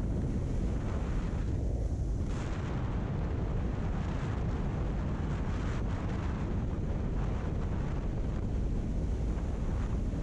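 Heavy wind buffeting on the microphone of a motorcycle riding at highway speed, around 100 km/h, a steady rumbling rush with the engine and tyre noise buried under it.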